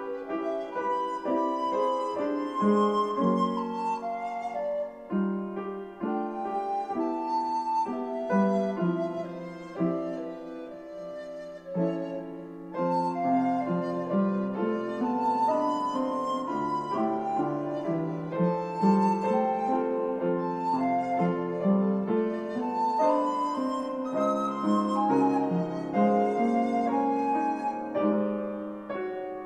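A recorder playing a melody with piano accompaniment.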